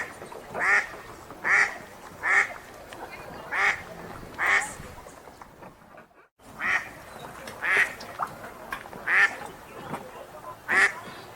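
Wild duck quacking in a regular series of short quacks, roughly one a second, with a brief dropout to silence about six seconds in.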